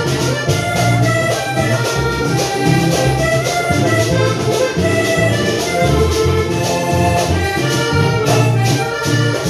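Upbeat music with a steady percussion beat, a bass line and sustained melody instruments.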